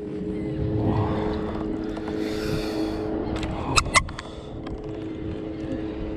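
A hooked sheepshead being scooped into a landing net beside a kayak: splashing about two seconds in, then two sharp knocks of the net's frame just before the middle, over a steady engine drone.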